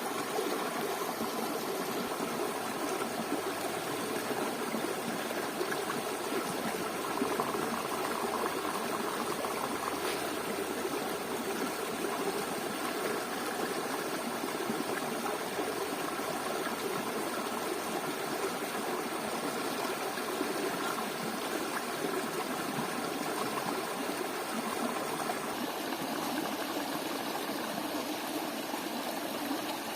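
Steady rush of a flowing stream, unbroken throughout.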